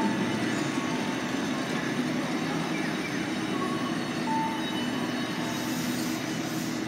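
Fukui Railway two-car articulated tram pulling away on street track: steady running noise of steel wheels on the rails with a low motor hum.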